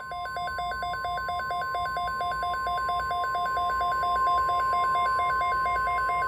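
NOAA Weather Radio's steady 1050 Hz warning alert tone, the signal that an emergency weather alert is about to be read. Over it, a warbling alarm alternates between a higher and a lower beep about four to five times a second.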